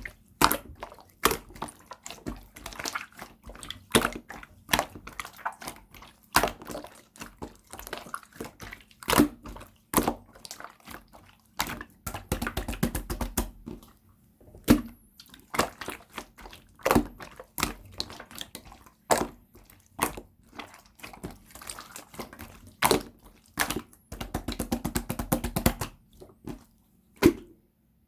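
Clear yellow slime being squished and worked by hand, giving many sharp, sticky clicks. There are two spells of rapid crackling clicks, about 12 seconds in and again about 24 seconds in, and the sound stops a little before the end.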